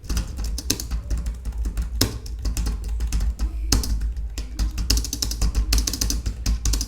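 Rapid, irregular clacking of keys being pressed on a Portronics Bubble Max wireless membrane keyboard with a plastic body.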